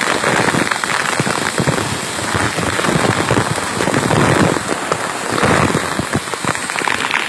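A waterfall pours down close by, and its spray pelts the phone's microphone, giving a loud, steady rush full of rapid drop ticks.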